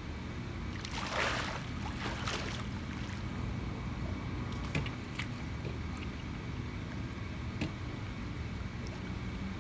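Pool water splashing as a swimmer ducks under and kicks up into a handstand: two splashes about a second apart, then a few small water sounds, over a steady low background rumble.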